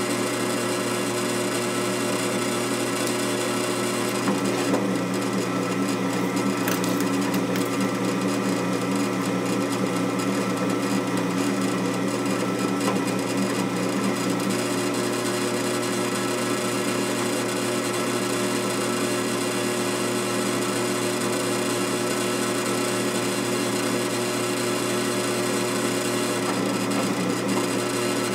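Drill press running steadily as its 3/16-inch bit drills down into a threaded hole in a cast-iron engine cylinder to bore out a stuck fastener that an easy out would not shift. The cutting noise is louder from about four to fifteen seconds in.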